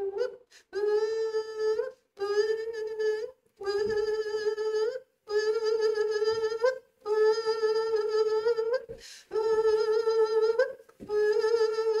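A woman's voice holding the same steady note over and over, each note about a second long and ending in a small upward lift, with short breaks between.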